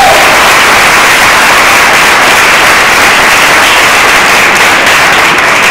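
Audience applauding loudly and steadily, a dense clatter of many hands.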